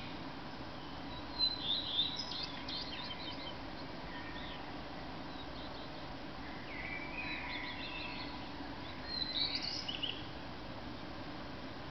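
Male common redstart singing two short song phrases of high, quick notes, one about a second and a half in and the next from about seven to ten seconds in, over a steady background hiss.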